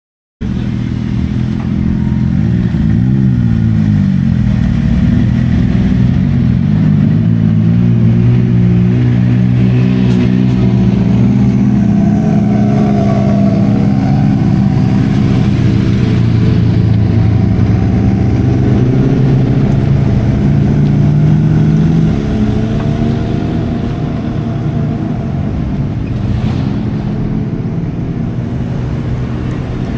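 Off-road vehicle's engine running hard, the revs rising and falling as it is driven, easing off somewhat about two-thirds of the way through.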